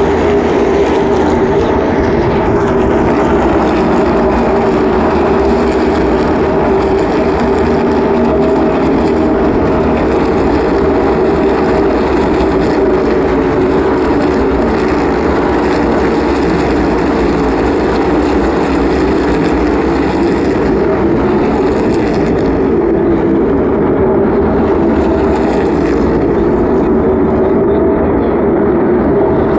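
NASCAR Cup stock cars racing around the oval, their V8 engines a loud, steady drone.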